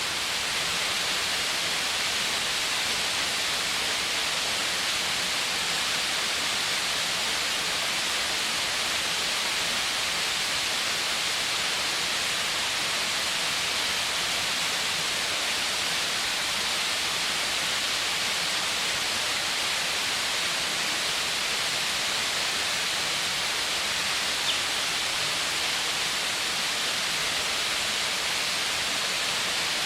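Steady rush of falling and running water from a waterfall and a stream, an even hiss-like roar with no change in level.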